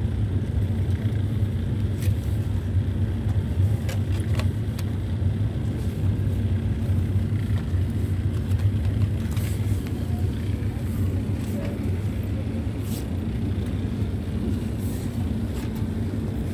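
Escalator machinery running with a steady low hum, with a few faint clicks over it.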